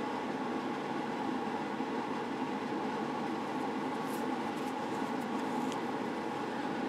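Steady low background hum, with a few faint light clicks around four to six seconds in.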